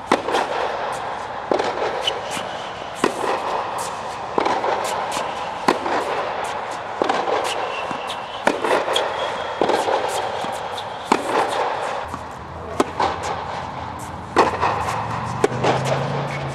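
Tennis rally on an indoor hard court: sharp pops of racket strings striking the ball, about one every one and a half seconds, with lighter ball bounces between.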